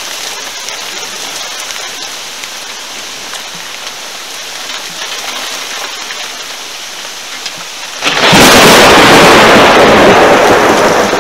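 Thunderstorm: steady rain hiss, then about eight seconds in a sudden, very loud clap of thunder that stays loud for about three seconds.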